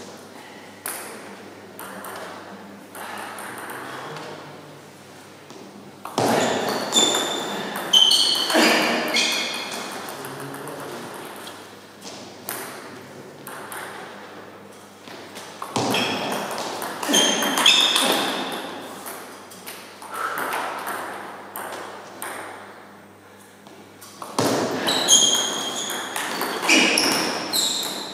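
Table-tennis rally: a celluloid ball clicks back and forth off rubber paddles and the tabletop in quick, irregular succession. Three louder stretches carry short high squeaks.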